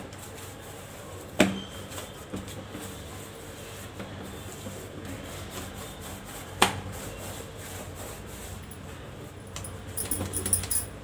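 Bhakri dough being kneaded by hand in a steel plate, with two sharp knocks about a second and a half in and again past six seconds. Light metallic jingling comes in near the end.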